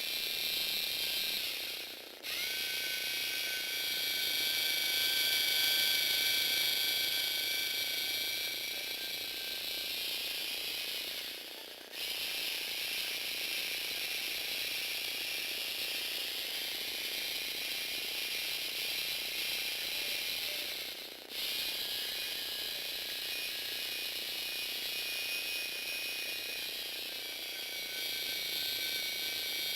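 Electric motors driving the plastic gear train of a Lego Technic model car with a stepless speed-change transmission, running with a steady gear whine and rattle. It winds down and starts up again three times, about every ten seconds.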